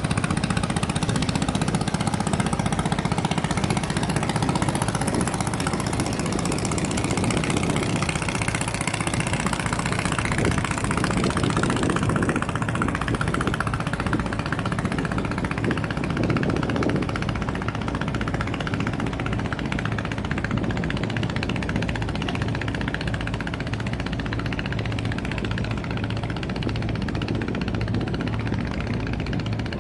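A boat's engine running steadily with a low, even drone that eases slightly in the second half.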